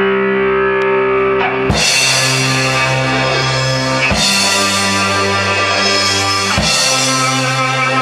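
Rock band playing live: electric guitars, bass and drum kit. A held chord rings for the first second and a half, then the full band comes in with cymbals, with big accented hits about every two and a half seconds.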